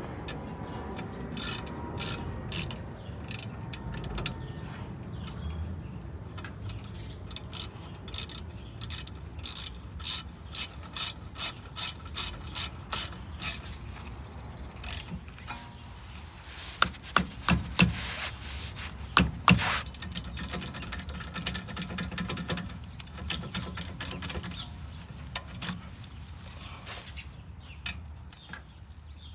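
Hand ratchet wrench clicking in runs as a fastener is turned, with a few louder sharp knocks about two-thirds of the way through.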